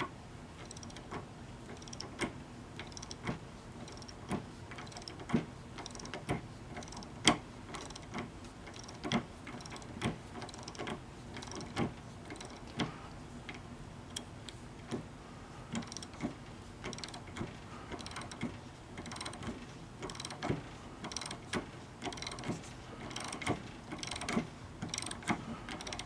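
Vintage Craftsman Circle-U 1/2-inch drive ratchet being worked, its pawl clicking over the gear. The clicks come about once a second at first and faster, in short runs, in the second half. The ratchet is in good working order.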